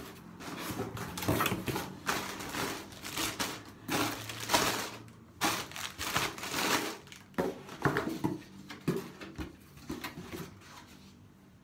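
A parcel box of makeup being opened by hand: irregular crinkling and rustling of the packaging, dying down near the end.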